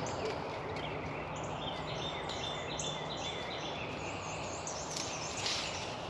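Woodland ambience: many songbirds chirping in short, quick notes over a steady background hiss.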